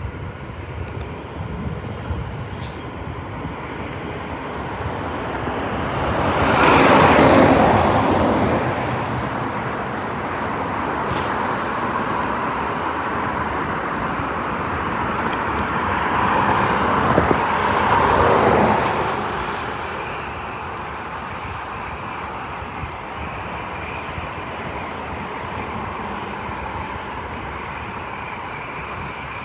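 Two cars pass close by on the road, each rising and fading away, one about a quarter of the way in and another just past the middle. Under them runs a steady distant jet hum from an Emirates Airbus A380 taxiing on the airfield.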